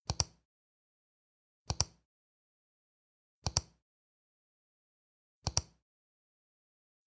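Computer mouse clicks, four of them about two seconds apart. Each is a quick pair of sharp ticks from the button being pressed and released.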